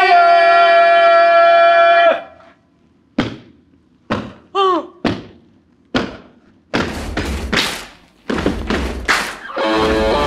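A long held note that stops about two seconds in, then a run of sharp knocks and heavier thumps and thuds, with guitar music starting near the end.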